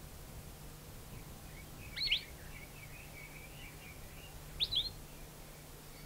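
Palila, a Hawaiian honeycreeper, calling: two short, loud whistled notes about two and a half seconds apart, with soft twittering between them.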